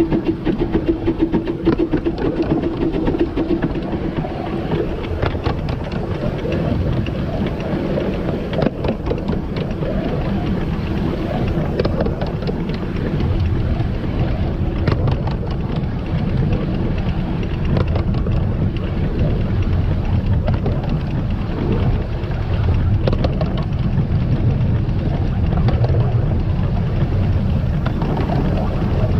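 A 15-inch-gauge steam train hauled by the locomotive River Irt running along the line: a steady rumble of wheels and running gear with many quick clicks from the track. A steady tone fades out about three seconds in.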